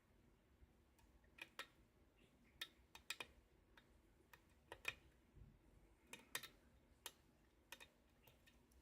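Faint, irregular clicking of a lock pick working the pin stacks of an Arrow KIK cylinder under tension, a dozen or so small ticks as the pins are lifted and set.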